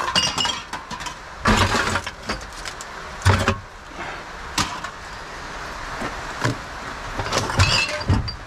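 Empty aluminium drink cans and glass bottles clattering and clinking as they are handled and tipped about in a plastic wheelie bin, in a run of irregular knocks.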